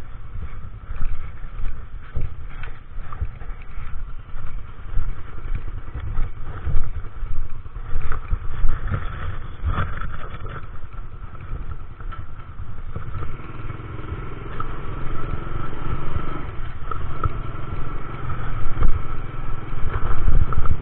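Small motor scooter engine running while riding along a rough street, with a low rumble and frequent knocks and rattles from the ride. The engine hum turns steadier and louder over the last several seconds.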